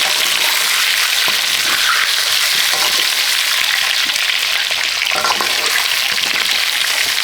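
Steady sizzle of food frying in hot oil in a pan.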